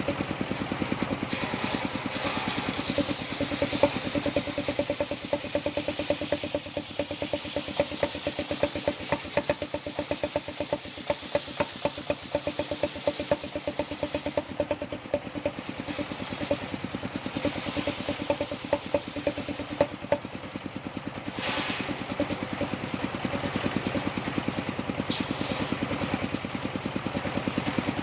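Engine driving a circular sawmill (serkel kayu), running steadily with a fast even pulse. Brief hissing bursts come over it twice in the second half.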